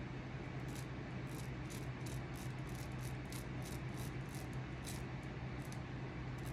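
Short scratching strokes of a hand carving tool cutting into a wooden walking stick, about two to three strokes a second, over a steady low hum.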